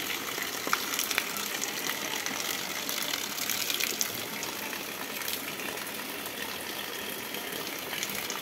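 Water running steadily as peeled cassava roots are washed in a steel bowl.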